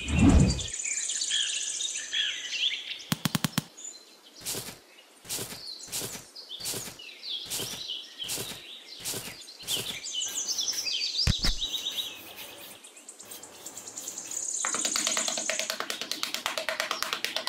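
Birds chirping and tweeting over light music, with a thump at the start and another about eleven seconds in. A run of short, evenly spaced strokes, about two a second, sounds from about three to ten seconds.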